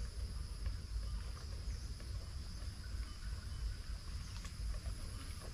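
Insects droning steadily in the surrounding vegetation: a continuous high buzz with a fainter, higher tone above it, over a low rumble.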